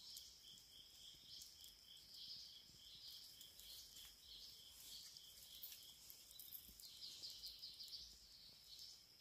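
Faint insect chorus at dusk: a steady high buzz with rhythmic chirps about three a second, with scattered light crackles from a wood campfire.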